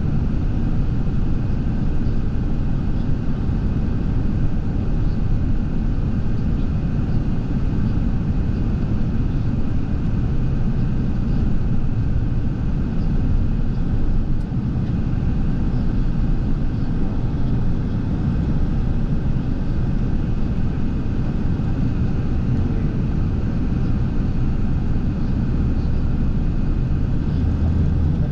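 Steady low rumble of a moving vehicle's engine, even and unbroken.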